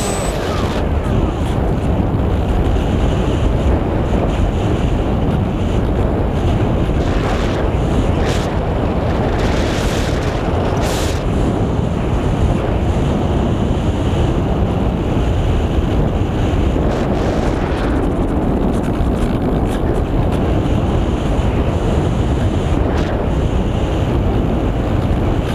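Steady wind noise from airflow rushing over the microphone of the onboard camera on a Skysurfer RC foam plane in flight. No motor tone is heard, so the plane is gliding. The hiss flares briefly a few times.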